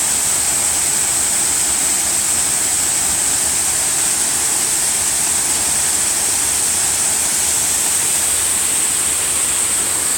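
Waterfall pouring: a loud, steady rush of falling water that does not change.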